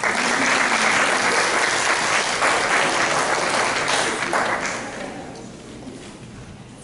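Audience applauding: the applause starts abruptly, holds for about four seconds, then dies away.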